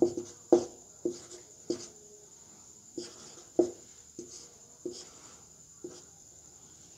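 Marker pen writing on a whiteboard: a series of short, irregular taps and strokes as the letters are drawn.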